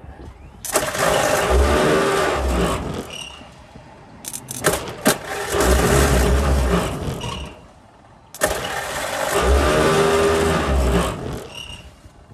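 Old Ford truck engine cranked on the starter three times, about three seconds each, sputtering but not staying running. The owner puts the misfiring and stalling down to an ignition fault he suspects is the condenser.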